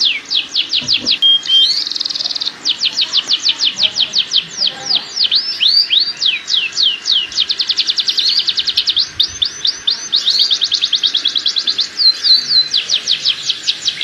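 Domestic canary singing continuously in long rolling trills of rapid falling notes, about ten a second, broken by a few short held notes and a brief buzzy note. It is the full breeding-season song, used as a lure to bring canaries into mating condition.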